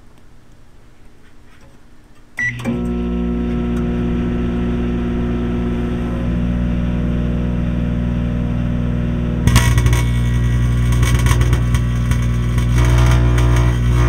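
A microwave oven switches on about two seconds in and runs with a steady electrical hum, heard from inside the oven. From about halfway through, a dense crackling joins the hum as the lit cigarette inside bursts into flame.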